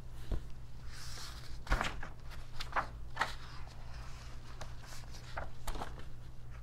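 A hardcover picture book being opened and its pages turned: soft paper rustles and light knocks from the cover and pages, over a steady low hum.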